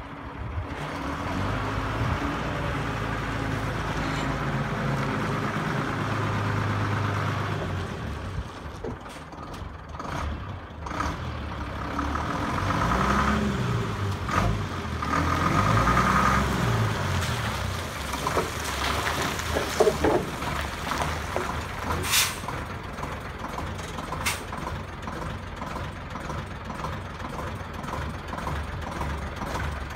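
Leyland Comet lorry's straight-six Leyland 400 Power Plus diesel engine pulling steadily as the lorry drives, then revving up and down twice. It settles to a lower, uneven running, with a short sharp hiss about two-thirds of the way through.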